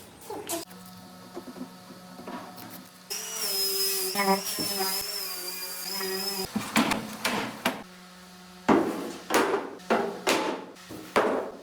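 A handheld power drill runs for about three seconds with a slightly wavering whine. Later, a run of sharp knocks comes about two a second.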